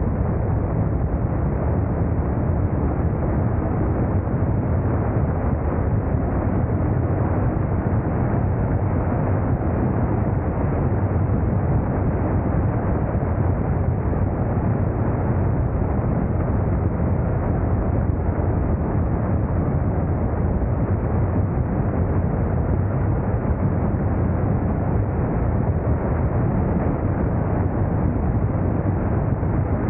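Steady low rumble of riding a motorcycle at speed: wind buffeting the camera's microphone over engine and road noise, unbroken throughout.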